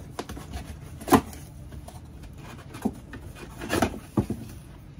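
A cardboard box being opened by hand, its flaps pulled up and folded back, with a few sharp knocks and rubs of cardboard. The loudest is about a second in, with a small cluster near the end.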